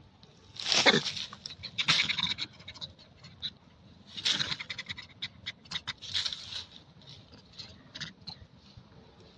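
Monkeys: four short, high-pitched bursts of sound among many quick clicks and scratches.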